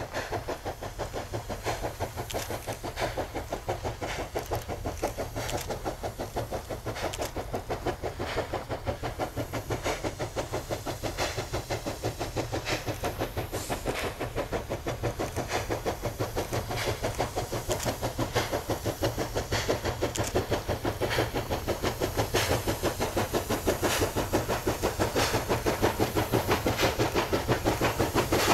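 Steam locomotive hauling a long coal train, its exhaust chuffing in a fast, even rhythm over a low rumble, growing louder as it approaches.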